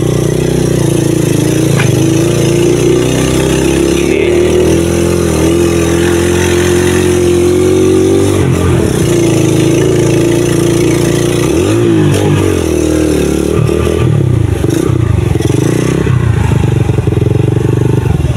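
Small motorcycle engine running steadily while carrying a rider and passenger. Its pitch dips and rises about halfway through and again a few seconds later, and the note grows more uneven near the end.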